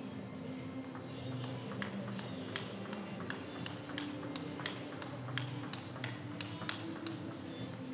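Table tennis ball in a rally, clicking sharply off the rackets and the table about three times a second. The clicks start about a second in and stop a little before the end, over a steady low hum.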